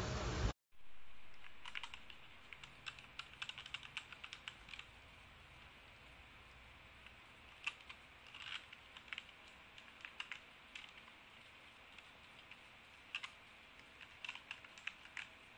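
Keystrokes on a mechanical gaming keyboard with red switches, typed faintly in short irregular bursts with pauses between them. In the first half-second a louder stretch of typing cuts off abruptly.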